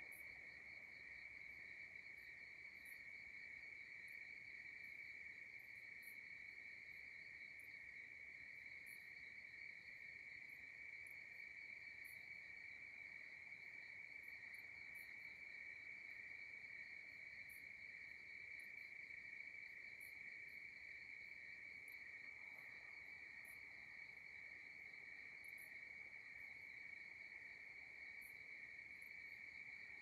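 Faint, steady chorus of crickets trilling, one unbroken high-pitched trill, with short very high ticks scattered over it.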